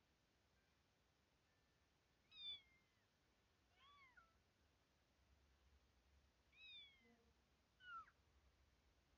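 A cat meowing four times: short, high-pitched meows that each fall in pitch, spaced a second or two apart.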